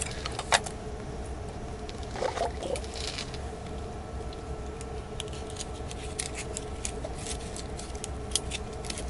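Metal bait dropper on a fishing line lowered into an ice hole: a short soft splash about two seconds in as it enters the water, then scattered small clicks and ticks from the line and a small reel being handled, over a steady hum.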